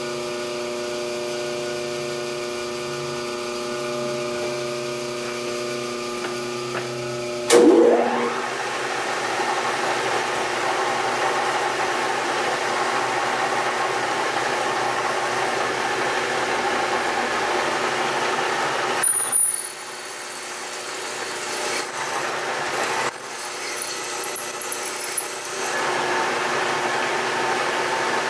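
Vertical milling machine's spindle running with a steady motor hum, then a sharp clank, after which a twist drill cuts into an aluminium block. The cut includes a brief high squeal near the middle, a quieter uneven stretch, and steady cutting again near the end.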